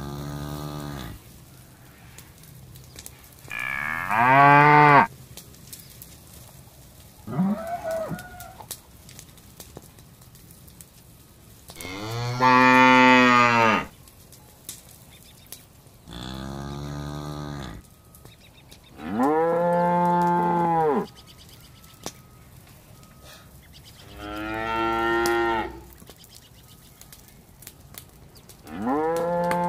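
Calves mooing, about eight separate calls a few seconds apart, each one to two seconds long and rising then falling in pitch.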